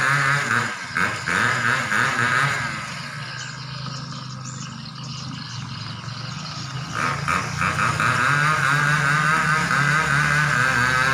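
A dense chorus of swiftlets twittering, loud at first, fading about three seconds in and swelling again about seven seconds in. Under it runs the low hum of a vehicle engine.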